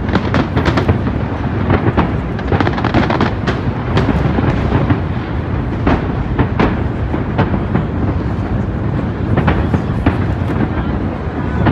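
Aerial fireworks display: shells bursting in quick succession, a continuous deep rumble of booms broken by many sharp bangs and crackles.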